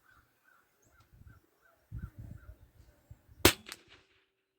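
A single rifle shot about three and a half seconds in, aimed at the target's 3-point spot, with a short echo trailing after it.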